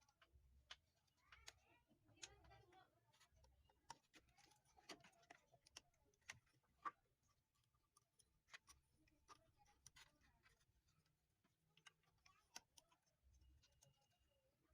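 Near silence with faint, scattered small clicks and taps at an uneven pace: small tools and parts being handled while the carbon brush holder is taken out of a blender motor.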